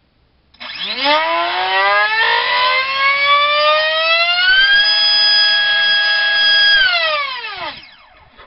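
Turnigy Assault 450 3800kV brushless helicopter motor on a 4-cell pack, spinning a 4x4.5 carbon-reinforced nylon prop: a loud whine that rises in pitch as it throttles up over about four seconds and holds steady at full throttle for about two seconds. It then falls in pitch as it spools down near the end.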